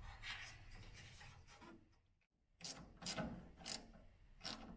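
Faint rustling as a wire terminal is fitted over a brass terminal stud, then four short scraping strokes about half a second apart as a small wrench turns the nut down on the stud.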